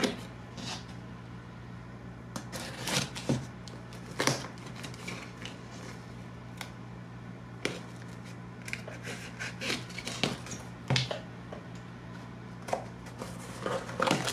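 Packing tape and cardboard being slit with a pocket knife, then the tape pulled back and the box flaps pried open: irregular scrapes, crackles and snaps, over a low steady hum.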